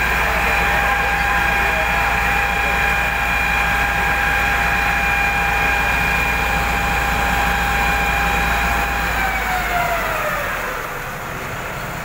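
Fire engine's water pump running hard with a steady whine over a low hum, under the hiss of a fan-spray nozzle throwing water. About nine seconds in the whine falls in pitch and the sound eases off as the pump slows.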